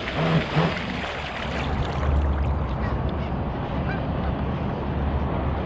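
Two short honk-like calls in quick succession, then a steady noise with a low rumble.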